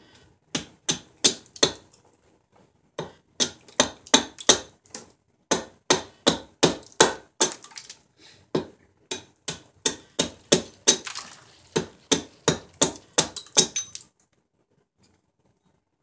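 A small hatchet striking the back of a knife set into the end of a silver birch log to split it, giving sharp, ringing knocks. The knocks come in runs of about two to three a second, with short pauses between runs, and stop about fourteen seconds in.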